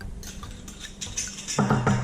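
Background music with light percussion: a run of quick clicks, then a low pitched note near the end.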